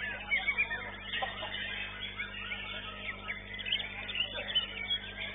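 White-rumped shama (murai batu) singing in a contest cage: a rapid run of whistled notes and chirps, over a steady low electrical hum.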